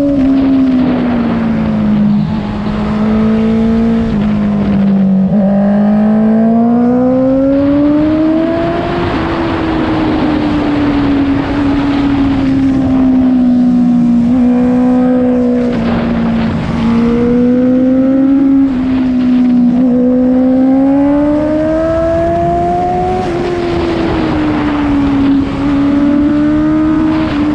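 A Honda CBR650F's inline-four engine running through an Akrapovic full-system exhaust with the dB killer removed, under way. Its note rises and falls slowly, dropping near the start, climbing twice and falling again.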